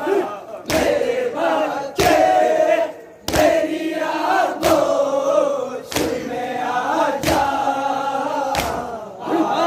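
Group of men chanting a noha in unison while beating their chests together (matam): loud, sharp hand slaps land in time, a little more than a second apart, under the chanting voices.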